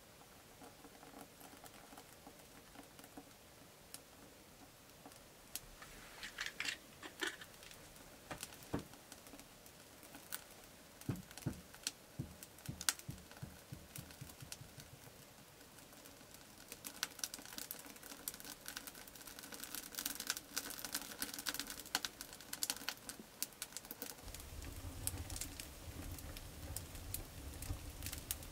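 Birch logs and birch bark catching fire in a Russian stove's firebox: faint, irregular crackling and popping that grows denser as the fire takes hold. A low rumble joins in for the last few seconds.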